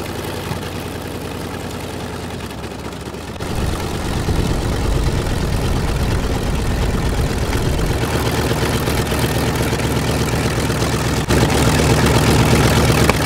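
Electric motor and propeller of a small foam RC P-51 Mustang model running steadily on the ground, a steady pitched hum that steps up louder about three and a half seconds in and again near the end.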